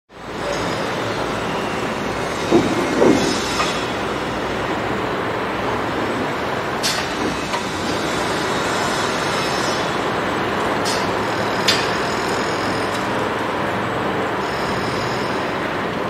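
Construction site ambience: a steady rumble of machinery with scattered metallic clanks and knocks. The loudest is a pair of knocks about two and a half to three seconds in.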